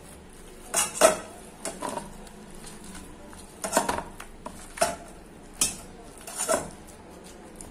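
Hand kneading a wet minced-chicken, onion and egg mixture in a stainless steel bowl, with irregular clinks and knocks against the metal bowl, about eight of them, spread unevenly through the mixing.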